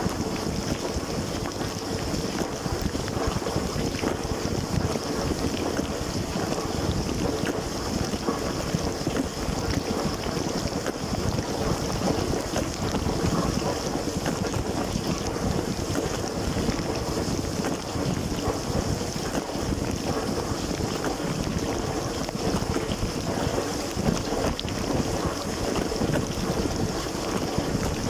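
Running LG dishwasher heard from inside the tub during the wash: water jets from the spray arms hiss and splash steadily against the dishes, racks and walls, over a low rumble.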